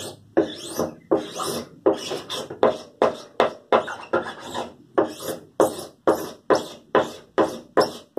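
Short, quick scraping strokes of a hand tool worked against a wooden screen frame and its stretched mesh, about two a second in a steady rhythm.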